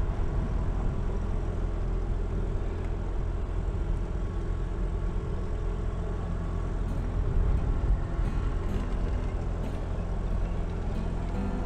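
Small boat's outboard motor running steadily at low speed: a constant low rumble.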